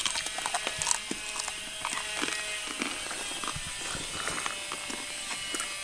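Crisp fried jackfruit chips crunching as they are chewed: an irregular run of short crackling clicks.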